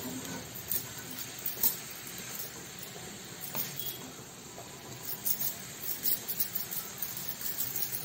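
Wooden spatula stirring and scraping a carrot-and-beans stir-fry around a kadai, with short scrapes and clicks against the pan over a steady low sizzle. The scrapes come more often in the second half.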